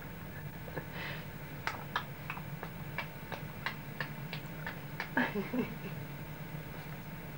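A young baby's soft mouth and breath noises, with a short little vocal sound falling in pitch about five seconds in. In the middle comes a run of light, evenly spaced ticks, about three a second.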